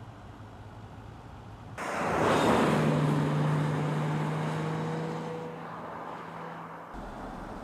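Car driving on the road, Mercedes S 400 Hybrid: a sudden rush of engine and tyre noise about two seconds in, with a steady engine hum, fading over the next few seconds and cutting off near the end.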